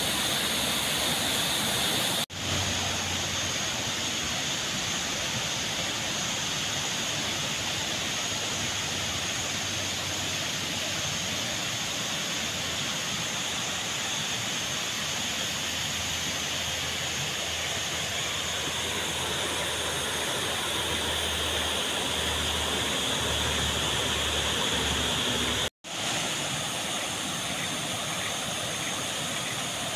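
Steady rush of a waterfall and flowing river water. The sound cuts out for a split second twice, about two seconds in and near the end.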